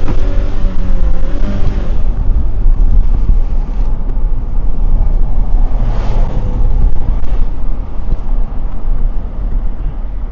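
Moving car's road and engine noise heard from inside the car: a steady, heavy low rumble.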